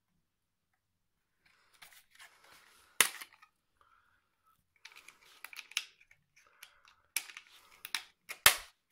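Hard plastic clicks and scraping from handling a small drone's remote controller while its battery cover is taken off and fitted back on. A sharp click comes about three seconds in and two loud clicks near the end.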